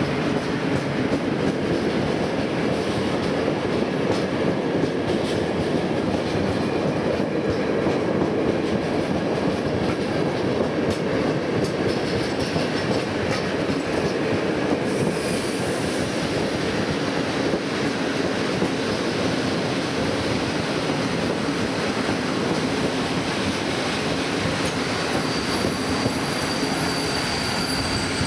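Intercity passenger train hauled by an EP07 electric locomotive rolling slowly past into a station platform: a steady rumble of wheels on rail with clicks over the rail joints. A short hiss comes about halfway through, and a thin, high wheel squeal sets in near the end as the train slows to a stop.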